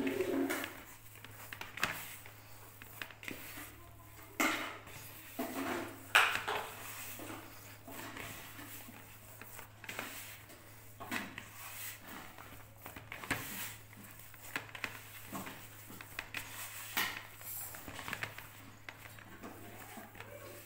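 Hands kneading soft oil-and-butter cookie dough in a plastic mixing bowl: irregular soft pats and squishes, with now and then a sharper knock as the bowl is shifted and turned on the table. A faint steady low hum sits underneath.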